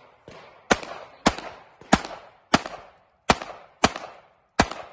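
CZ Accu-Shadow 2 9mm pistol fired in a steady string: seven loud shots about one every 0.6 s, each with a short echo. A fainter shot comes just before the string.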